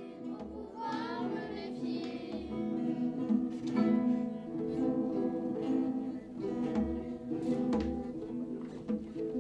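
Several acoustic guitars strumming a tune together, with djembe hand-drum beats.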